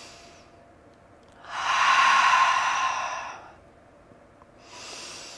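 A woman's slow, deep yoga breathing: one long, loud breath begins about one and a half seconds in and lasts about two seconds, then a softer breath comes near the end.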